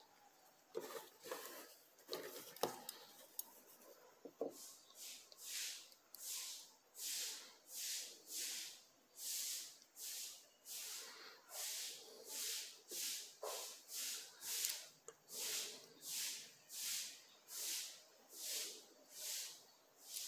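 Fine-tipped metal precision pliers scraping back and forth on a smartphone's battery connector pins, in a steady rhythm of soft hissing strokes about two a second, after a few small handling clicks. This is the work of easing a bent-in battery contact tooth back out.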